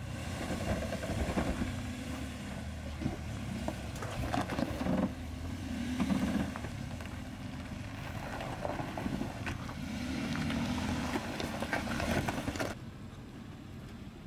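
Lifted Nissan Pathfinder SUV's engine running at low speed as it crawls over rock ledges, the revs rising and falling, with a few sharp knocks from tyres and suspension on rock. The sound goes quieter near the end.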